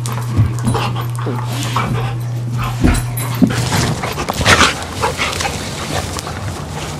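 A retired greyhound and a Labrador retriever mix play-fighting: short, uneven dog vocal sounds and scuffling, loudest about four and a half seconds in.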